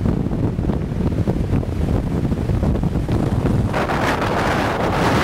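Wind buffeting the camcorder microphone, a steady low rumble; a bit under four seconds in a stronger gust adds a loud rushing hiss.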